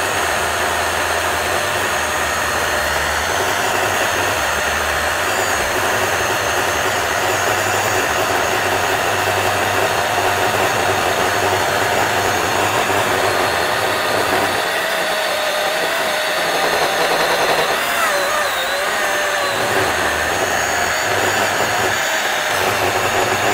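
DeWalt FlexVolt battery chainsaw fitted with a ripping chain, cutting lengthwise along the grain of a hardwood log and running steadily under load.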